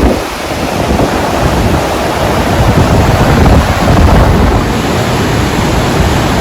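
Loud, steady rushing roar of the Rhine Falls' water, with wind buffeting the microphone.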